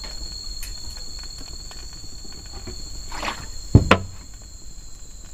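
Steady high-pitched chirring of forest insects such as crickets, with a brief rustle a little after three seconds and two sharp knocks just before four seconds.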